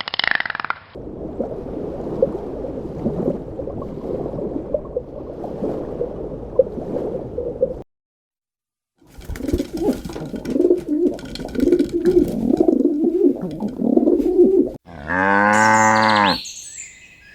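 Low, pulsing animal calls in two stretches broken by a short silence, then a cow moos once about fifteen seconds in: a held call lasting about a second and a half that falls in pitch at its end.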